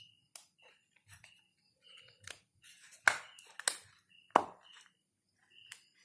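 Small plastic clicks and knocks of a Sanwa PM3 pocket digital multimeter's case being handled and fitted back together, about seven sharp clicks, the loudest three coming about three, three and a half and four and a half seconds in.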